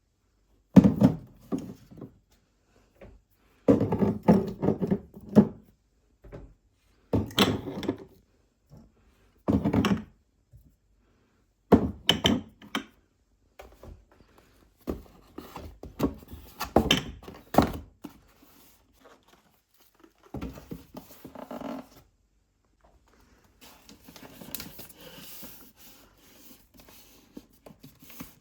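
Household items being handled and set down on hard surfaces: short knocks and thunks in separate clusters every few seconds, then soft rustling of packaging near the end.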